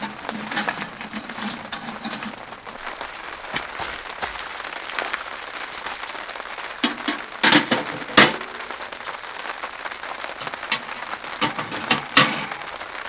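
Rain pattering steadily on the tent fabric, with sharp metal clanks and clinks as the tent stove's wire basket and grill grate are handled and set on its top: the loudest two a little past halfway, and more near the end.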